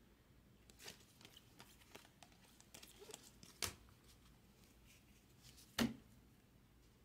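A stack of 2022 Bowman baseball cards being flipped through by hand: quiet sliding and flicking of card stock, with two louder clicks or knocks, one about three and a half seconds in and one near the end.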